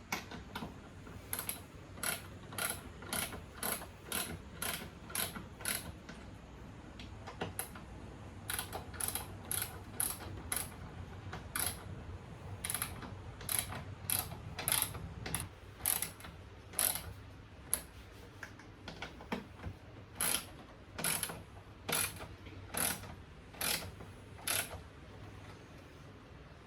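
A ratchet clicking in repeated short strokes, about two a second, in runs with brief pauses, as self-tapping bolts are driven up into the timber base of the mini bike's seat.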